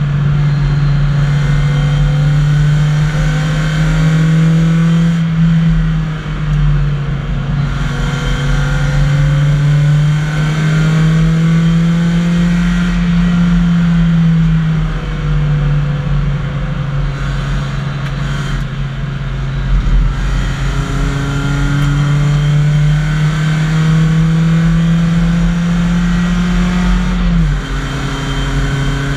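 BMW 318i race car's four-cylinder engine heard from inside the cabin, running hard at high revs. Its pitch slowly climbs, then falls back several times, with a sharp drop near the end.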